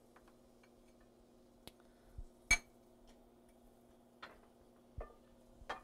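A few separate clinks and knocks of kitchen utensils and dishes, the loudest about two and a half seconds in, over a faint steady hum.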